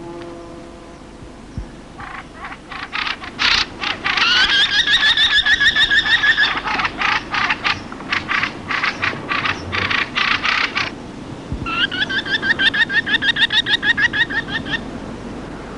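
Merlin calling: a fast chatter of sharp repeated notes, about seven a second, in several bouts with short breaks between them.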